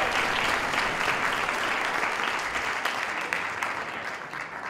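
Audience applauding, a dense patter of many hands clapping that fades gradually toward the end.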